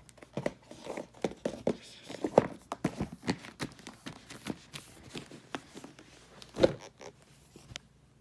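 Handling noise: an irregular run of taps, clicks and rustles from objects being moved about by hand, with one louder knock near the end.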